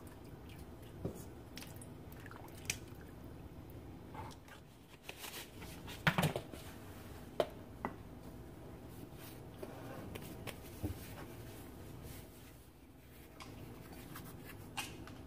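Quiet room tone with a few scattered small clicks and light taps of handling, the loudest cluster about six seconds in.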